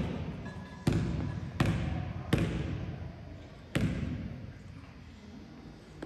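Basketball bounced four times on a hardwood gym floor in a free-throw dribble, each bounce echoing in the hall; the last comes a little before four seconds in.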